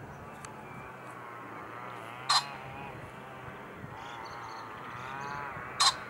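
Male common pheasant crowing: two short, loud, harsh calls, about three and a half seconds apart.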